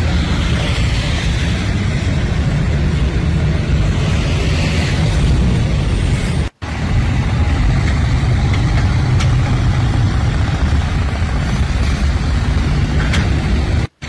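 A steady, loud low rumble with a hiss above it, cutting out abruptly for an instant about six and a half seconds in and again at the very end.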